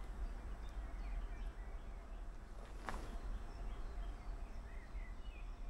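Quiet outdoor ambience: a steady low rumble with faint bird chirps, and a single short click about three seconds in.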